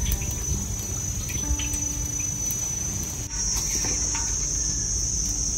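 Insects, crickets, trilling in one continuous high steady tone that grows louder about three seconds in. A low rumble and a few light clicks sit underneath.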